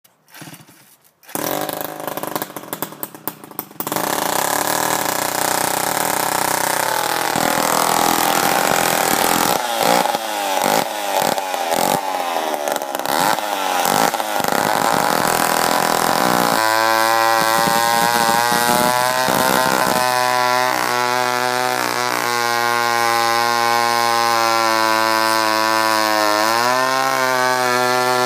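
Homelite Super 66 two-stroke chainsaw starting: a few sputtering bursts, then it catches about four seconds in. It is revved up and down repeatedly, then settles into a steady idle with a small drop in pitch near the end.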